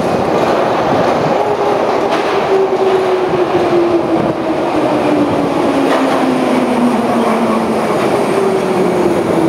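London Underground tube train running into a platform: a steady loud rumble of wheels on rail, with a whine that falls slowly in pitch as the train slows, and a higher whine starting near the end.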